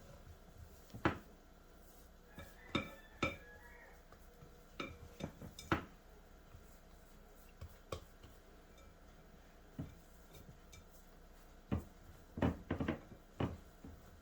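Spatula knocking and scraping against a mixing bowl while folding flour into cookie dough: irregular clinks and taps, a few briefly ringing, with a quick cluster near the end.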